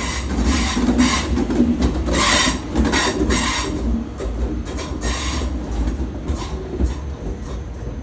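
Deutsche Bahn ICE high-speed train passing close by: a steady deep rumble with irregular bursts of wheel clatter over the rails, loudest in the first half and easing after about four seconds.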